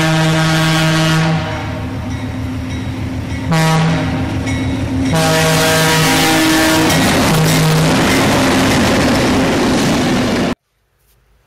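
Nathan P5 five-chime air horn sounding a chord of several notes in repeated blasts, the last a long blast that cuts off sharply near the end. The chord is slightly out of tune because the horn is fed through a hose narrower than the recommended one, and the sound is distorted by an overloaded camera microphone.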